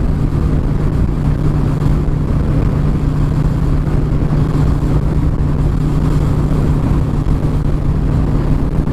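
Harley-Davidson V-twin motorcycle engine running steadily at cruising speed, with strong gusting wind buffeting the microphone.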